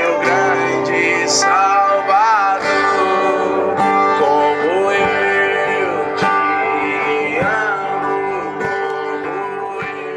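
Background music with guitar and singing, fading out near the end.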